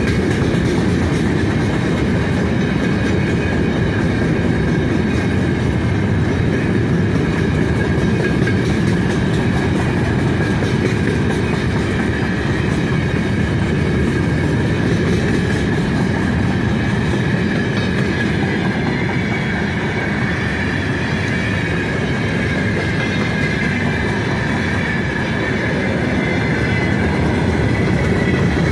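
Freight train's gondola wagons rolling past close by: a steady rumble and clatter of steel wheels on the rails, with a thin high squeal running above it.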